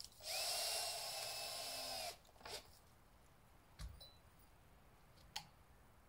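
Power drill running for just under two seconds, its whine rising as it spins up and dropping as it stops, followed by a few short knocks.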